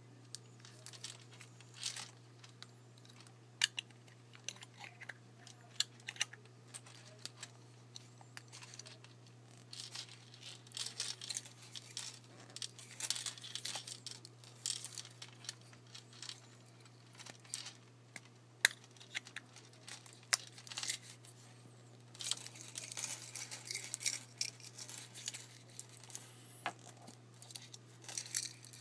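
Fingers handling a metal pocket watch and working at its case back: scattered sharp clicks and stretches of scraping and rubbing, over a steady low hum.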